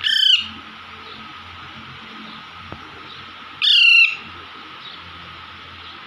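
Young Alexandrine parakeet giving two loud calls, a short one at the start and a slightly longer one about three and a half seconds later.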